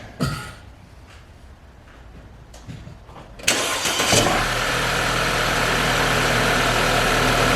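2011 Audi A4 quattro's engine starting: a few light clicks, then the engine catches suddenly about halfway through and settles into a steady idle.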